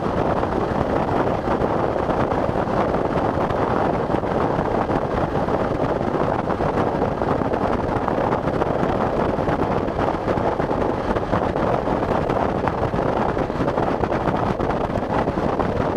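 Steady rushing noise of a vehicle driving through heavy rain, rain and road noise blended into one even roar.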